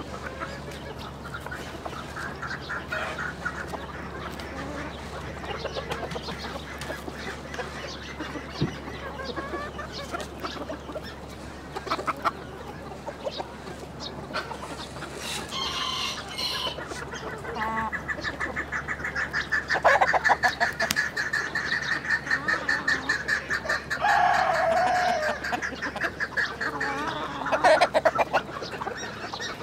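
Farm poultry flock calling, mainly chicken-like clucking. The calls grow busier and louder in the second half, with rapid chattering runs and a few loud bursts near the end.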